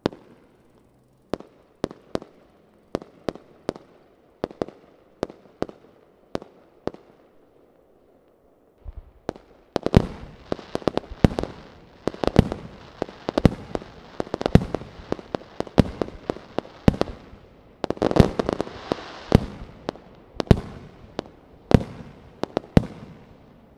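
Aerial firework shells bursting: first a string of sharp bangs about two a second, then, from about nine seconds in, a dense barrage of overlapping bangs with crackle between them that stops near the end.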